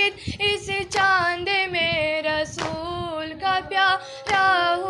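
A woman's voice singing a noha, a Muharram lament for Husain, in long held notes that bend and break off every second or so.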